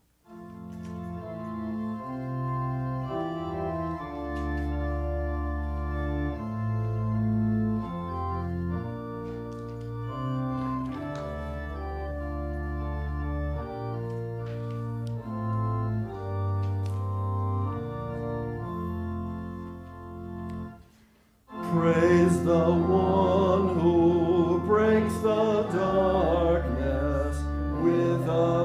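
Organ playing the introduction to a hymn in sustained chords with a moving bass line, breaking off briefly about 21 seconds in. Voices then start singing the first verse with the organ.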